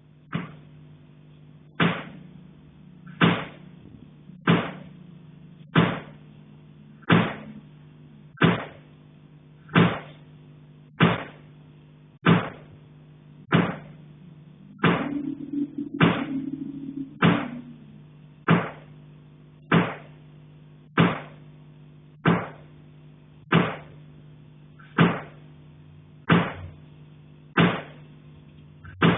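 Repeated sharp knocks in an attic, very regular at about one every 1.3 seconds, each with a short echo, over a steady low hum.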